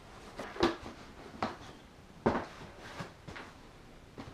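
Cardboard shoeboxes being handled and shifted: a handful of short, dull knocks and scuffs, the strongest about two thirds of a second and about two and a quarter seconds in.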